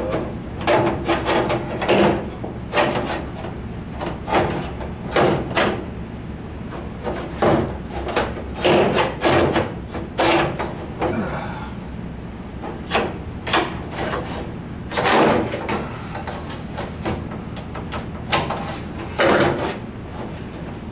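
Irregular knocks, clunks and rattles of metal parts being worked loose and handled inside a VW Beetle door, with its bolts already removed.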